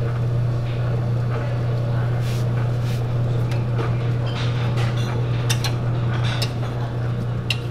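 Electric noodle dough-sheeting machine running, its motor giving a steady low hum as the dough sheet passes through the rollers. Light clicks and taps come over the hum, more of them in the second half.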